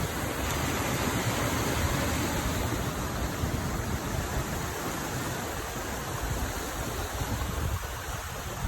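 Creek water rushing steadily over a small drop.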